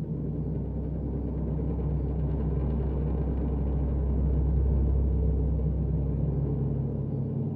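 Low, steady rumbling drone, a dark ambient horror sound effect, swelling slightly in the middle.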